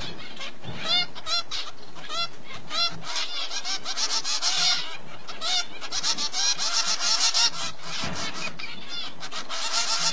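Finch chicks in a nest begging, several birds calling at once: separate high arched chirps at first, then dense continuous chirping from about four seconds in.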